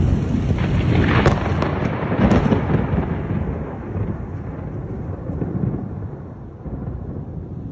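Thunder in a severe thunderstorm: a loud peal with two sharper cracks in the first few seconds, rolling away into a fading low rumble.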